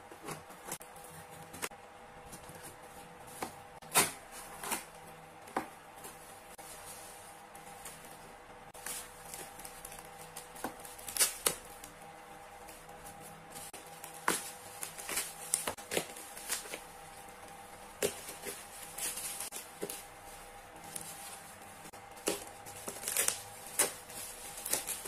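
Packaging being opened by hand: a blade slitting tape on a cardboard box, then tape peeling and plastic wrap and bubble wrap crinkling, heard as scattered sharp clicks and rustles. A faint steady hum runs underneath.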